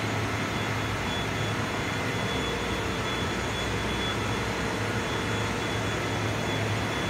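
Steady ship's engine-room machinery noise: a constant low hum and roar from running machinery, with a few faint steady tones above it.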